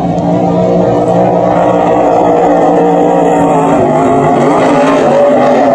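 Racing powerboat engine running at high speed, a loud, steady engine note.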